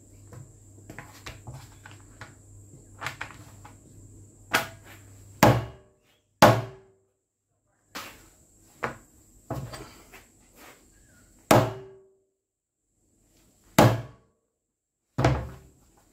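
Axe blade chopping down onto stab-resistant vest panels laid on a very hard surface: a series of sharp, heavy knocks about a second or two apart, growing louder about four seconds in. A faint steady high tone runs underneath.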